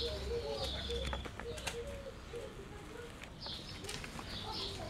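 Birds chirping, with a pigeon cooing in short, repeated low notes that fade after about a second. Light clicks and scuffs come from puppies playing on a tiled floor.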